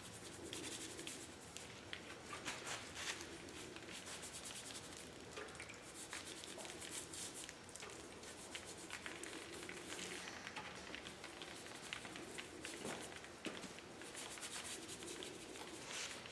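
Stain brush dabbing and scrubbing wet stain onto precast concrete panels: faint, repeated scratchy brushing strokes.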